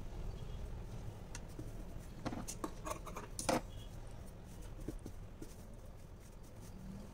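Blouse fabric being handled on the sewing machine table: a short run of rustles, clicks and taps from about two seconds in, the loudest near the middle, over a steady low hum.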